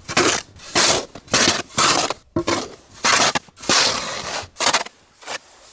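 Metal-bladed snow shovel scraping and scooping snow off pond ice in quick repeated strokes, about two a second, stopping about five seconds in.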